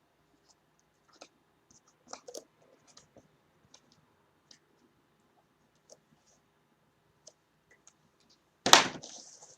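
Sealed card boxes being handled and numbered with a marker: scattered light clicks and scratches, then one loud knock near the end with a short scraping hiss after it.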